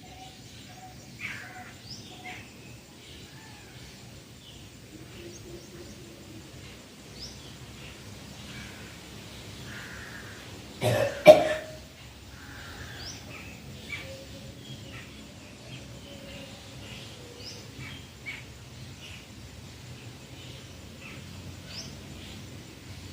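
A man coughing twice in quick succession about halfway through, the thread of sutra neti (a cotton thread drawn through the nose and out of the mouth) catching in his throat. Birds chirp faintly throughout.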